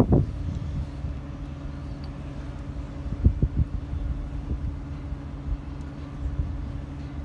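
A steady low engine hum, with a few short gusts of wind thumping on the microphone in the middle.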